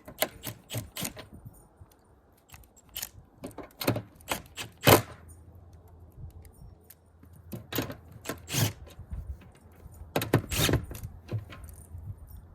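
Small metal hardware being handled and fitted by hand: carriage bolts, washers and nylock nuts clinking against the adapter plate in irregular sharp clicks and knocks, the loudest about five seconds in.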